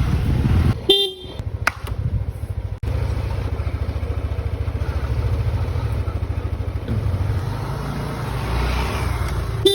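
A vehicle engine idling with a steady low putter, and a short horn beep about a second in and another at the very end.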